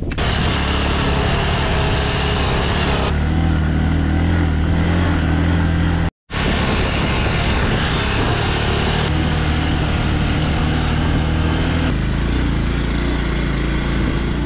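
Motorcycle engine running steadily while riding, over a constant rush of wind and road noise. The sound shifts abruptly a few times where the footage is cut, with a brief moment of total silence about six seconds in.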